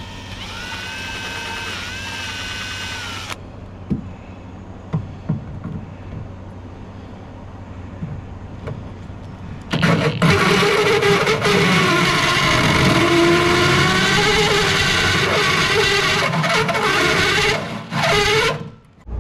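Cordless drill with a hole saw: a short whining run in the first few seconds, a few light knocks, then from about ten seconds in the hole saw cuts through the boat deck under load, a loud grinding whine that wavers in pitch and stops shortly before the end.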